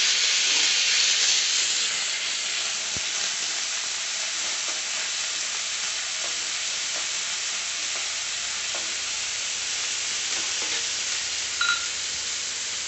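Freshly added chopped onions sizzling in hot oil in a steel kadai, a steady frying hiss that is loudest for the first couple of seconds and then eases a little, while they are stirred. A brief high squeak near the end.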